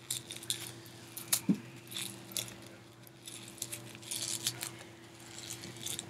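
Light crackling and clicking of small plastic toy packaging picked at and turned in the fingers, in scattered irregular bursts, over a steady low hum.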